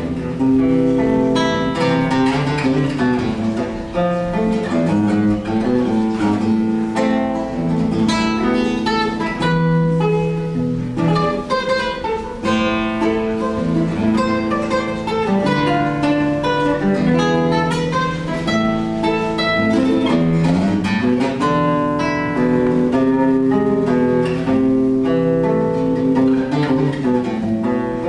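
Acoustic guitar music: a piece played live, with plucked melody notes over held chords.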